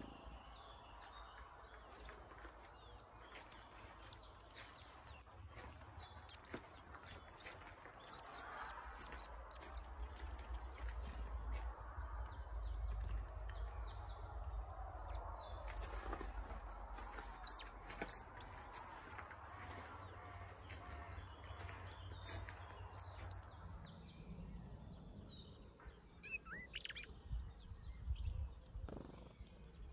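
Garden birds chirping and calling, many short high chirps and whistles, a few louder ones in the middle and near the end, over a low rumble on the microphone.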